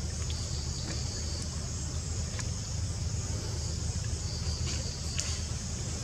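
Steady high-pitched chirring of an insect chorus over a low steady rumble, with a few faint clicks.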